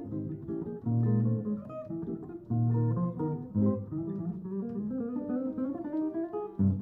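Cream semi-hollow Telecaster-style electric guitar played clean, picking a quick line of single notes and short chords over lower held notes.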